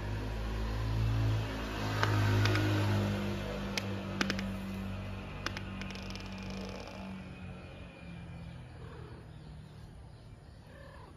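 A motor vehicle's engine passing by, loudest about two to three seconds in, then fading away over the next few seconds, with a few sharp clicks along the way.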